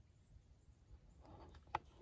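Near silence with a faint low rumble; a soft rustle rises late on, with one sharp click near the end.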